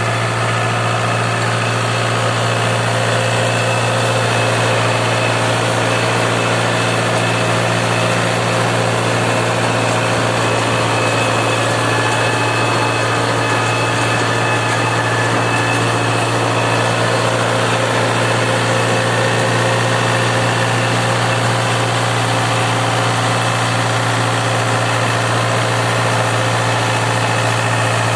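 TRX 7400 compact tractor engine running steadily, driving a Sahtiman 155 rotary tiller that churns the soil behind it.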